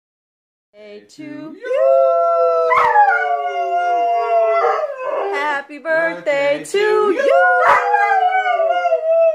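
Rottweiler-type dog howling: long drawn-out notes that start about a second in, each held and slowly falling in pitch, repeated several times.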